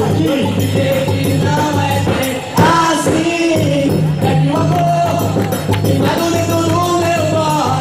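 Festa junina quadrilha music: a melody, likely sung, over steady low notes and a percussive beat, with a short break about two and a half seconds in.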